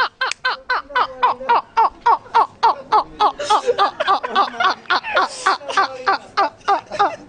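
Men laughing hard and uncontrollably: a long, unbroken run of rapid 'ha' bursts, about four or five a second.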